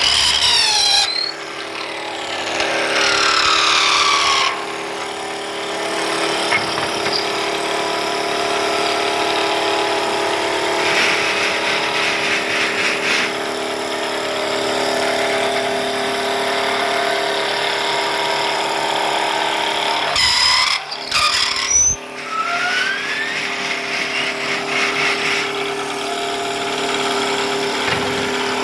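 Wooden brush-handle making machine running: a steady motor hum with high whines that fall in pitch over the first few seconds, a brief break about two-thirds of the way in, then a whine rising again.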